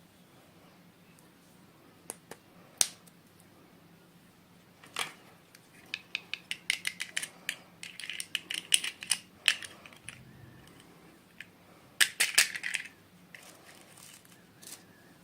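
Small plastic toy pieces and packaging being handled: a few separate clicks, then quick runs of clicks and rattles about six seconds in and again around twelve seconds.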